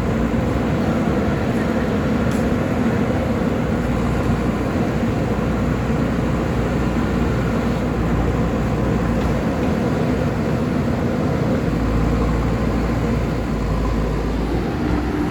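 Diesel engine of a JCB backhoe loader running steadily under work, a dense continuous rumble.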